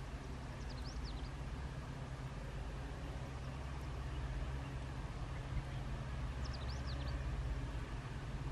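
Low, steady drone of an EMD diesel locomotive's engine as the train approaches, growing slightly louder. Bird chirps break in briefly about a second in and again near seven seconds.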